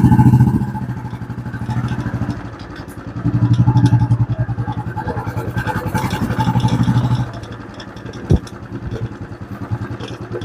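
Royal Enfield Classic 350's single-cylinder engine running on a test ride. It opens up under throttle twice, near the start and again for about four seconds in the middle, and eases back in between. A single sharp knock comes near the end.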